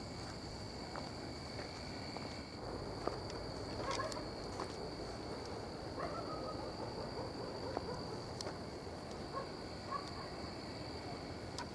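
Night insects, crickets, keeping up a steady high-pitched drone, with a second, lower drone that stops about two and a half seconds in. A few faint clicks and short chirps sound over it.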